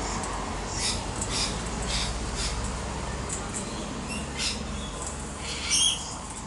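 Wild parrots giving a run of short, harsh squawks, with one louder, longer screech near the end.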